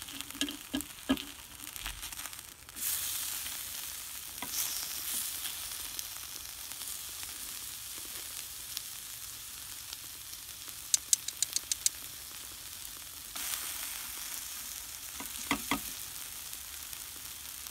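Steak sizzling on the hot steel blade of an old military folding spade set in charcoal embers: a steady frying hiss that grows louder about three seconds in. A quick run of about six light clicks comes just past the middle.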